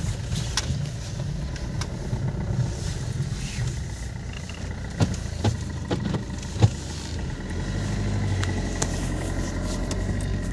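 Car engine running and the car driving as it turns around, heard from inside the cabin as a steady low rumble. A few sharp clicks and knocks come about halfway through.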